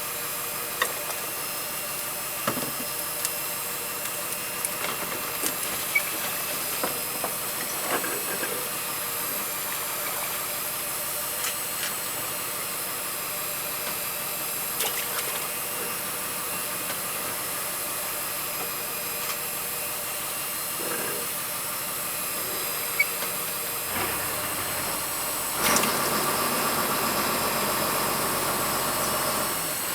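Steady motor hum on a fishing boat, with several fixed whining tones and scattered knocks and clicks. About 26 seconds in, the hum grows louder and busier.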